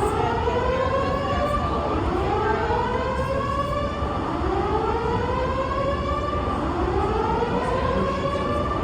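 Building emergency alarm sounding a slow whoop: a rising tone that repeats about every two seconds, over a low hubbub of background noise.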